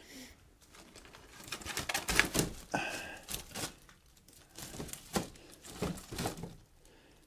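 Rustling and small irregular knocks of things being handled and moved about on a wooden ledge while someone searches for a piece of wood, with a brief squeak about three seconds in.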